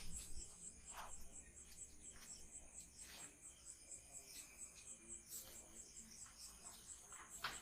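Faint high-pitched insect chirping, about four pulses a second, with a few soft taps scattered through.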